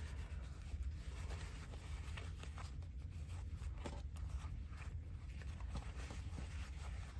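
Faint rustling, scratching and small clicks of a folding knife being unwrapped from its packaging wrap by hand, over a steady low hum.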